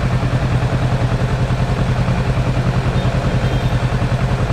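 Kawasaki Z650's 650 cc parallel-twin engine idling steadily, with an even, fast pulse.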